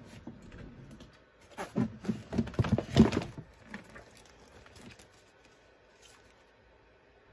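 Rummaging through a pile of paper cross-stitch charts and craft supplies: soft rustling, then a quick cluster of knocks and rattles of things being moved and set down, loudest about three seconds in, tailing off into a few faint taps.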